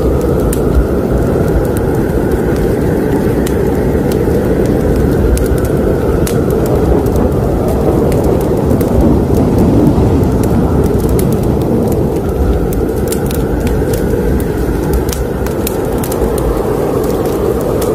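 Fire burning in a fireplace: a steady low roar of flames with scattered sharp crackles and pops from the burning wood.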